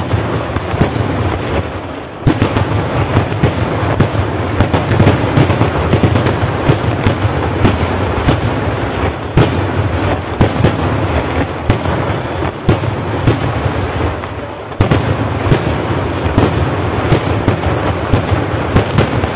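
Kerala temple-festival fireworks (vedikettu) going off as a loud, dense barrage of rapid bangs that run together almost without pause. It eases briefly about two seconds in and again about fifteen seconds in, then picks straight back up.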